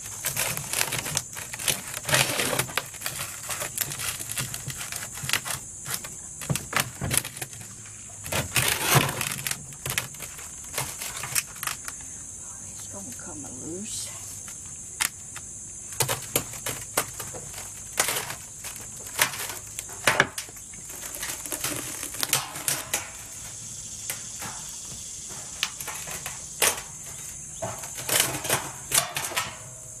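Chipping and scraping at the edges of a cast Portland cement leaf with a hand tool: an irregular run of sharp taps and scrapes on hardened concrete. A steady high insect drone carries on underneath.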